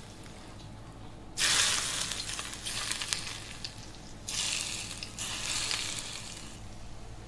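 Hot oil poured over chopped chillies and garlic on steamed lobster, sizzling in several bursts as each pour hits. The first and loudest starts suddenly about a second and a half in; the others come and fade over the next few seconds.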